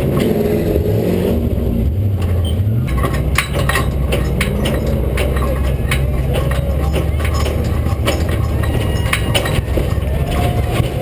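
Race truck engine heard from its own bed, revving up and down for the first three seconds, then settling into a steady low running. Many sharp clicks and knocks come through over it.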